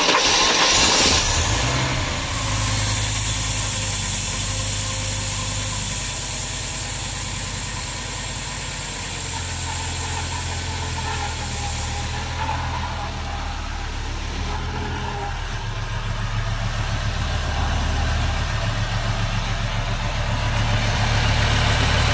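Freshly built 2.4-litre Audi inline five-cylinder engine with 13:1 BMW pistons, just started: loudest for the first couple of seconds, then settling into a steady idle. It is still untuned, with its idle regulator not yet connected.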